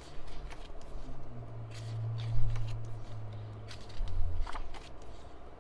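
Pages of a K-pop album photo book being turned and handled, with scattered short paper rustles and taps and a low thump about halfway through, over a low steady hum.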